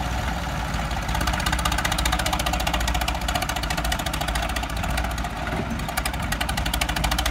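Diesel engines of a New Holland 3630 and a Sonalika 750 tractor running hard under heavy load as they pull against each other in a tug of war, with a fast, even exhaust beat that grows a little louder about a second in.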